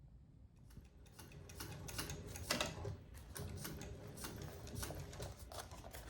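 Sewing machine stitching: a run of light, irregular clicks and ticks over a faint low hum, starting about a second in.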